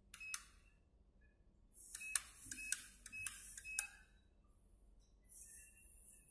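ATM PIN-pad keys being pressed to enter a PIN, each press a sharp click with a short electronic confirmation beep. There are five presses: one just after the start, then four about half a second apart from about two to four seconds in.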